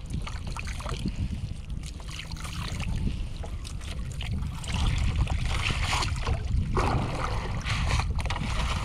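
Water splashing and dripping as a wet cast net is hauled up out of the water against the side of a small boat, louder from about halfway in, over a steady low wind rumble on the microphone.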